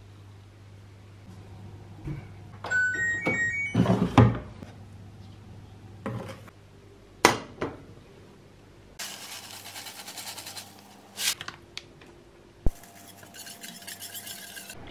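Kitchen cooking sounds: a short run of electronic beeps about three seconds in, knocks of a steel saucepan on a ceramic hob, and near the end a wire whisk stirring a thick sauce round the pan.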